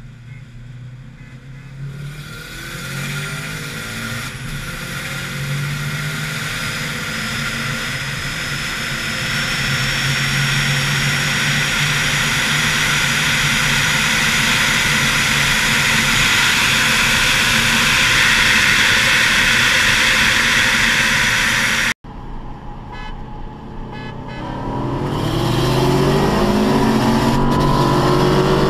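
Subaru WRX and Ford Mustang 5.0 V8 racing side by side at full throttle, with engine sound building and climbing in pitch through the gears over steady wind and tyre noise. About two-thirds of the way through it cuts off abruptly, and a second full-throttle run builds, rising in pitch.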